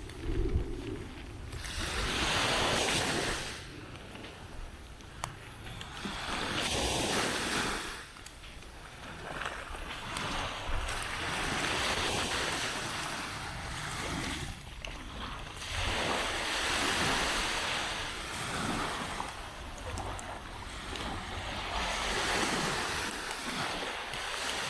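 Small waves breaking and washing up a sandy beach, the surf swelling and fading about every five seconds.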